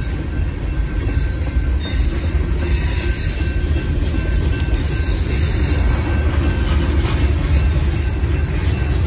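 Freight cars of a passing Union Pacific manifest train rolling over a grade crossing: the steady low rumble of steel wheels on the rails, with some clatter.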